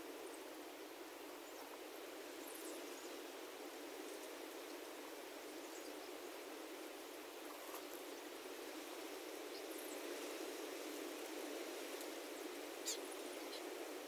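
Faint, steady outdoor hiss with a few brief, high chirps scattered through, and one sharp tick about 13 seconds in.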